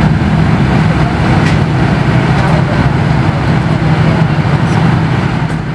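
A vehicle engine running steadily with a constant low drone.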